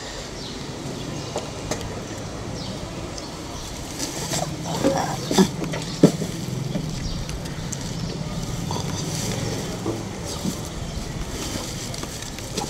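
Scattered knocks, clicks and rustling as a bulging mesh sack of goods is pushed onto a scooter's floorboard and handled, over steady background noise with a low hum from about four to ten seconds in.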